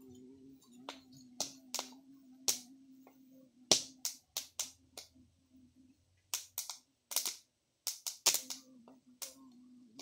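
Open wood fire roasting corn cobs, crackling with sharp, irregular pops. A low steady hum runs underneath and cuts out for a couple of seconds past the middle.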